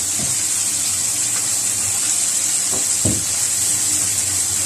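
Pork pieces frying in a little cooking oil: a steady sizzle.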